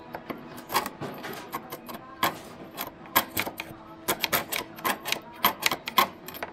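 A metal bar tapping and prodding against rusty spots on a Mercedes's steel underbody: a run of irregular sharp metallic taps, several a second at times, over background music.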